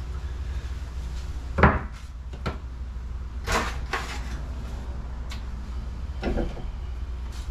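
A handful of knocks and clunks of parts and tools being handled against plywood walls and a wooden shelf, the loudest about one and a half seconds in, over a steady low hum.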